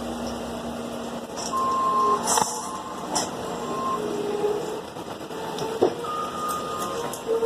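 Heavy truck engine running with backup alarms beeping on and off as equipment reverses. A few sharp knocks or clanks, the loudest about two and a half seconds in.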